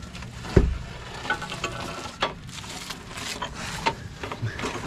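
A metal tray clanking and scraping as it is pushed into an oven, with one heavy thump about half a second in and scattered metallic clicks and rattles after it.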